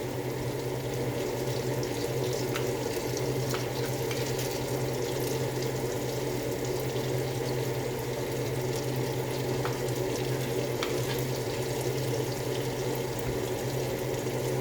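Tomato paste and aromatics sizzling steadily in a frying pan, with a few faint clicks of a spoon against the pan, over a steady low hum.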